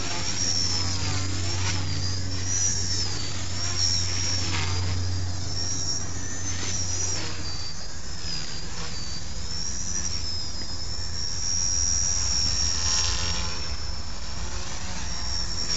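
Blade mCP X micro RC helicopter in flight: a high-pitched electric motor and rotor whine that keeps wavering up and down in pitch as the throttle changes, with a low hum that drops away about halfway through.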